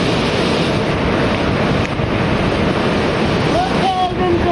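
Waterfall close by, its rushing water and spray giving a loud, steady roar that buffets the microphone. A voice calls out near the end.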